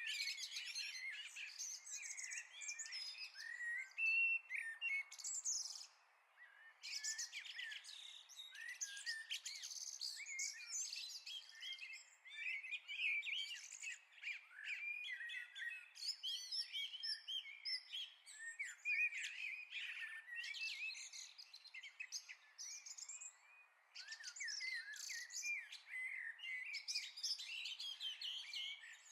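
Several songbirds singing at once: a dense chorus of quick chirps, trills and warbles, with two brief lulls.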